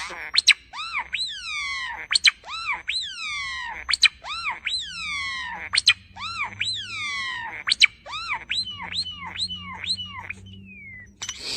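An animal calling over and over: short, high, pitched cries that each rise briefly and then fall, about two a second.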